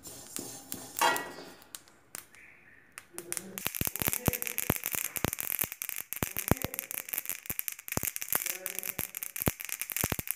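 A metal spatula scrapes sesame seeds around a dry steel kadhai, then from about three and a half seconds in the seeds crackle and pop thickly as they roast in the hot pan. The popping is the sign that the seeds are still roasting; when it stops, they are done.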